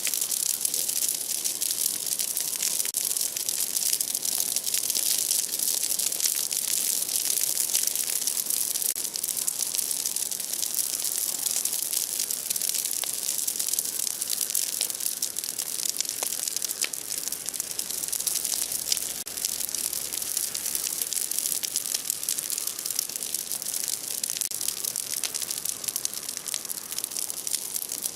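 Large bonfire of broken tree branches burning, with a dense crackle of many small pops over a steady hiss.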